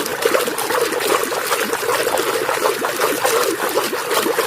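Water running and splashing steadily over a muddy toy vehicle as it is washed.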